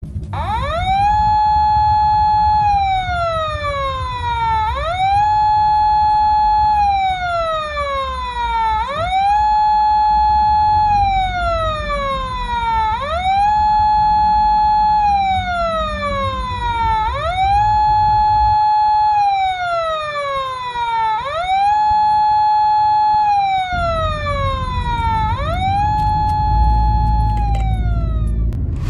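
Police car siren wailing in a regular repeating cycle about four seconds long: a quick rise, a held high note, then a slow fall, seven times over. Beneath it runs the low rumble of a car on the road, which drops away for a few seconds past the middle.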